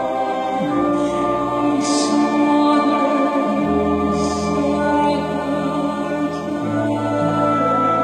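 Choir singing with a symphony orchestra: long held chords that change about every three seconds, with a few sung hissing consonants.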